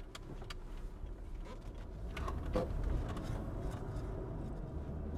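Cabin sound of a Toyota Crown Athlete +M with its supercharged 3.5-litre V6 driving: a steady low engine and road rumble with a few light clicks, and hardly any exhaust note from the stock system.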